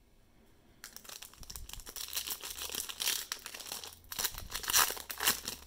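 Foil trading card pack wrapper crinkling as it is handled and torn open. It starts about a second in and is loudest near the end.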